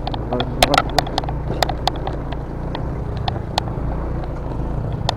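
A vehicle's engine running steadily at low revs, with many sharp knocks and rattles from the vehicle jolting over a rough, stony road.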